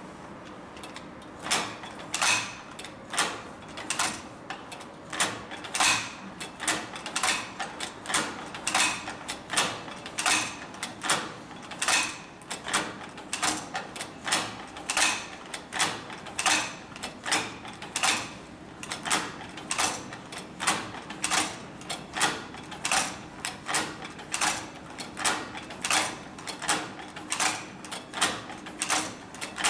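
Cowboy Outlaw hand-operated leather sewing machine being worked by hand, stitch after stitch. Each stroke gives a sharp mechanical clack, about one and a half a second, starting about a second and a half in.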